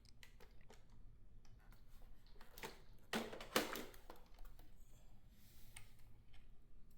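Faint clicks and rattles of plastic vacuum parts being handled and unclipped, with a louder run of clicks and scrapes about three seconds in.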